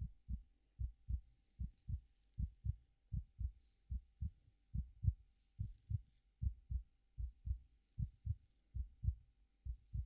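A steady heartbeat, deep soft thumps in lub-dub pairs. Over it come soft, high rustles of hair being played with, a swish about every two seconds.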